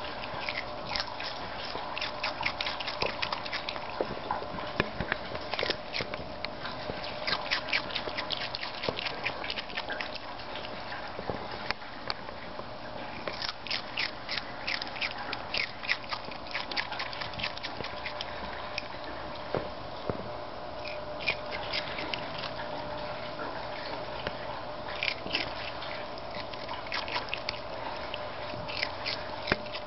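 Ring-tailed lemur biting and chewing a piece of red pepper: crisp, wet crunching in runs of rapid clicks, broken by short pauses between mouthfuls.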